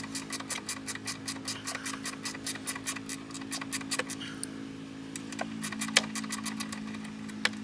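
Socket ratchet clicking fast and evenly, about five clicks a second, while loosening the nuts on the winch's power and ground cable terminals. After about four and a half seconds it slows to a few scattered clicks, with two sharper clicks near the end.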